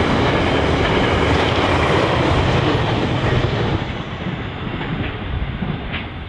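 Steel wheels of a container freight train's flat wagons rolling over the rails as the tail of the train passes, fading away from about three and a half seconds in as the train recedes.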